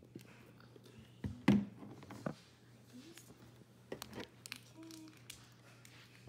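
A few scattered light knocks and taps of handling at a table, the loudest about one and a half seconds in, over a faint low hum.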